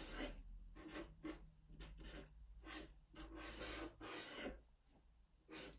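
Black felt-tip marker scratching faintly across paper in short, irregular strokes while outlining lettering. The strokes stop shortly before the end.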